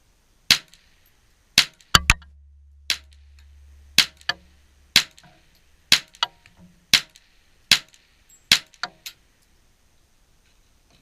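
Semi-automatic rifle shots fired in a rapid string, about fifteen in all, roughly one a second with a few quick doubles, stopping about nine seconds in.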